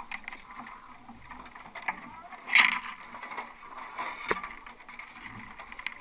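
Knocks and clicks from a rowing shell and its riggers being handled as the crew climb in, with a single louder scuffing noise close by about two and a half seconds in.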